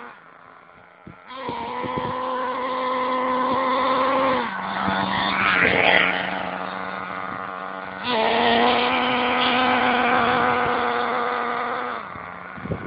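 STS D30M nitro engine of an RC monster buggy being broken in, running with a high buzzing note. Quiet for about the first second, it then runs steadily, drops in pitch a few seconds in, is loudest as the buggy passes close about six seconds in, rises in pitch again about eight seconds in, and fades near the end.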